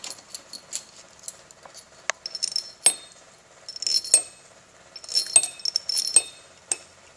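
Small metal bolts clinking against one another and against the metal pump housing and top cover as they are handled and set in place: bursts of sharp, ringing clinks about two, four and five to six seconds in.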